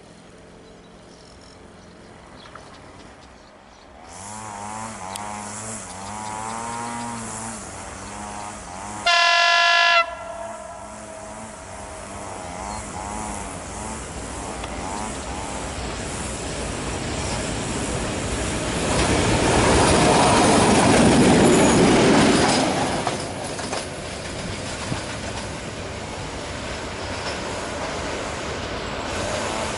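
ST44 diesel-electric locomotive with its two-stroke V12 diesel, heard approaching: the engine note rises in from about four seconds in. One horn blast of about a second comes near the ten-second mark, and the locomotive's noise swells to its loudest about two-thirds of the way through, then carries on as a steady rumble.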